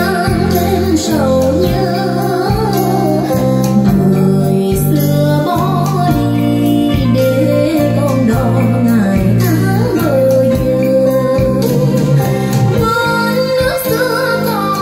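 A song with a woman singing over a steady beat, played back through a pair of JBL TLX 16 three-way loudspeakers.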